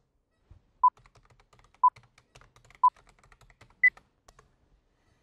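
Four short electronic beeps a second apart, the first three at one pitch and the fourth higher, like a countdown. Faint computer-keyboard typing clicks run underneath.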